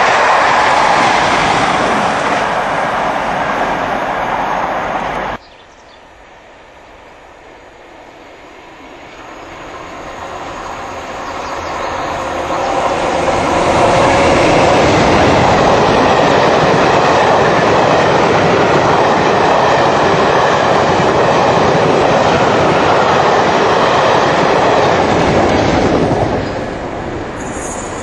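Passenger trains of coaches running past at speed. The first passing cuts off abruptly about five seconds in. Then a second train is heard approaching, growing louder over several seconds, and runs by loud and steady for about twelve seconds before easing off near the end.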